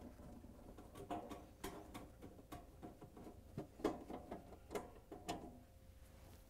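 Faint, irregular clicks and light knocks of a quarter-inch nut driver working screws out of a refrigerator's plastic freezer back panel.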